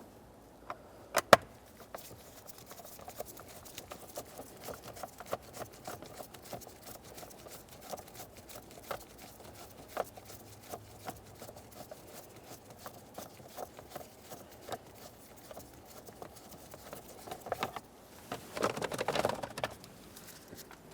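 Phillips screwdriver backing a screw out of a plastic steering column cover: a couple of sharp clicks about a second in, then many faint small ticks. A louder stretch of rustling and scraping comes near the end.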